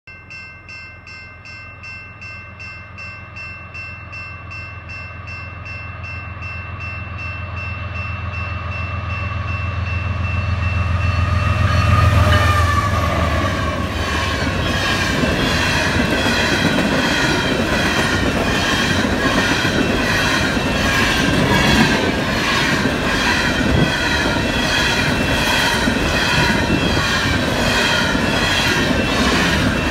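A Canadian Pacific diesel locomotive approaches with a low engine drone, growing louder until it passes about twelve seconds in, while the crossing bell rings rapidly over steady high tones. Then a long string of coal cars rolls by with a steady rumble and a rhythmic clatter of wheels over the rail joints.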